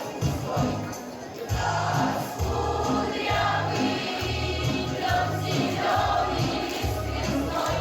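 Music: a group of voices singing over an accompaniment with held bass notes.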